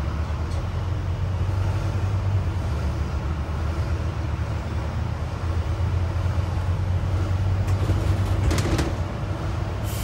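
Steady low rumble of a bus's engine and running gear, heard from inside on the upper deck while it drives. There are a few brief clicks about eight seconds in.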